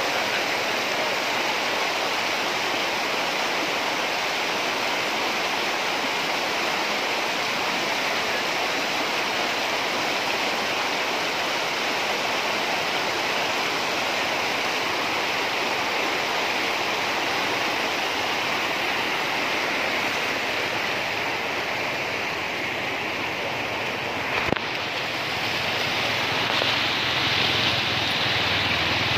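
Floodwater rushing across a road in a steady torrent, with a single knock near the end.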